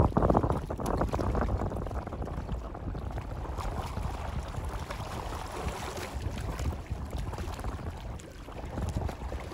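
Wind gusting on the microphone beside a choppy reservoir, a low rumbling rush with the wash of small waves, strongest in a gust right at the start.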